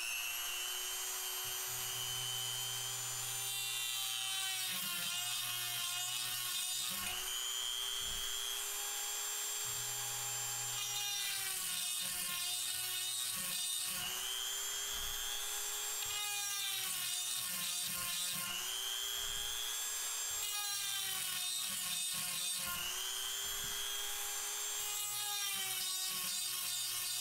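Electric rotary chainsaw sharpener, a Dremel-style tool with a 7/32-inch grinding stone, running with a steady high whine. Its pitch dips briefly, again and again, as the stone loads up grinding into one chain tooth after another.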